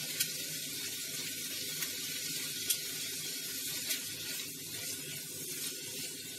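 Mixed vegetables (broccoli, bell peppers, mushrooms, green beans) sizzling steadily in a nonstick frying pan, stirred with a spatula, with a few clicks as the spatula strikes the pan.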